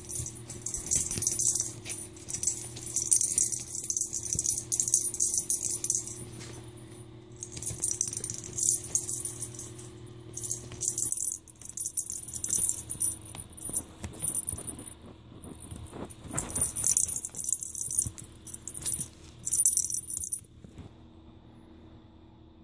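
Small bell inside a plastic cat-toy ball jingling in quick bursts as kittens bat and roll it, stopping a couple of seconds before the end.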